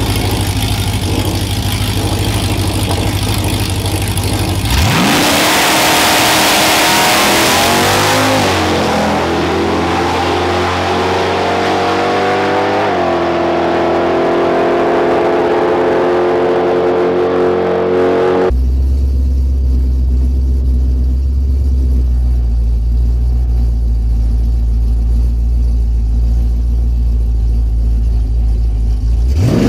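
Ram 1500 pickup's Hemi V8 idling, then launching hard about five seconds in. Its pitch climbs through the gears, dropping back at upshifts about eight and thirteen seconds in, as the truck runs away down the drag strip. From about eighteen seconds in, a steady low engine rumble, with a brief rev right at the end.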